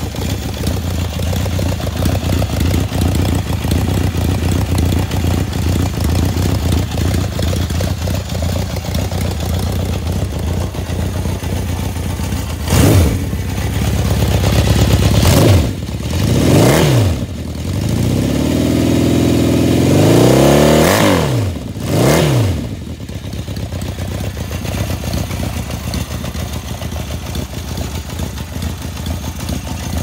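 Stock Honda CB750's air-cooled inline-four idling through its original exhaust with open baffles. Past the middle it is blipped several times, revs rising and falling, one held for a couple of seconds, before it settles back to a steady idle.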